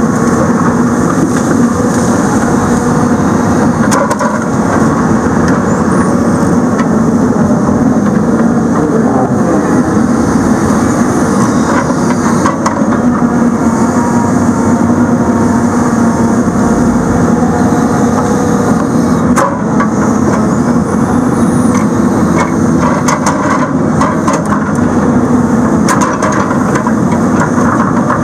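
The heavy diesel engine and hydraulics of the machine carrying a Rotobec grapple saw run steadily at working speed while the grapple swings and positions a log. Several sharp cracks come in the second half.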